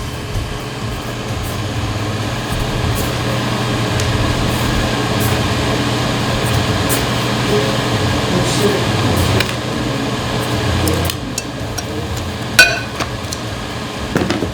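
Ube puto batter being mixed in a bowl: a steady rattling churn with clinks against the bowl that eases off about eleven seconds in, then one sharp clink near the end.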